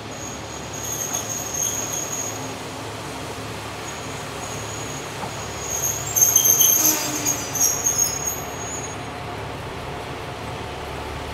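Train wheels squealing against the rails as a diesel train moves through the station: high-pitched squeals come and go, loudest a little past the middle, over a low steady engine hum.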